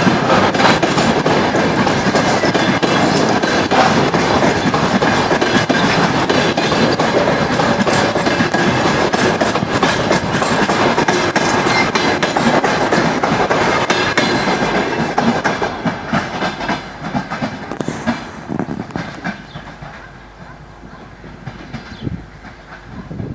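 Passenger train rolling past, wheels clattering over the rail joints. The clatter fades away over several seconds about two-thirds of the way through as the train moves off.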